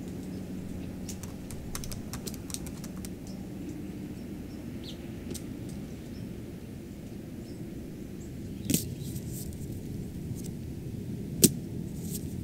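Quiet outdoor ambience, a steady low rumble with scattered faint ticks. Twice, about nine and eleven seconds in, a short sharp slap as the leather football lands in the hands of a man lying on the grass.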